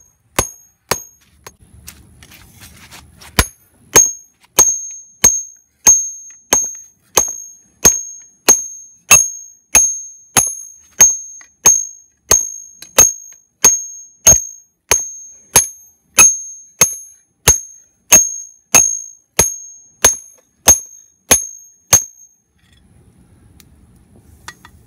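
Hand-hammer blows on red-hot lawnmower-blade steel resting on an octagonal steel-block anvil, each strike ringing with a high bright tone. It opens with a few lighter taps, then settles into a steady rhythm of about one and a half blows a second, and the hammering stops a couple of seconds before the end. The blows are flattening the spearhead's socket end into a fishtail shape while the steel is hot.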